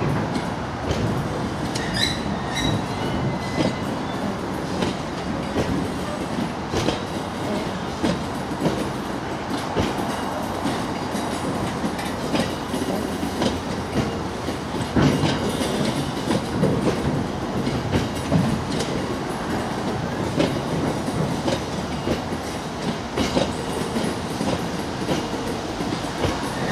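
Bogie hopper wagons of an aggregate train rolling past, their wheels clicking steadily over the rail joints. There is a brief high wheel squeal about two seconds in.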